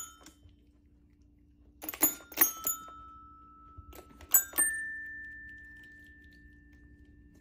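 Poodle pawing the keys of a child's toy xylophone: a quick cluster of bright metal-bar notes about two seconds in, then a few more around four and a half seconds, the last one ringing on and fading slowly.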